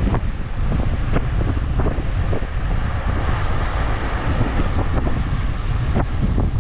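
Wind buffeting the microphone over surf breaking and washing among shoreline rocks, the wash of a wave growing louder about halfway through.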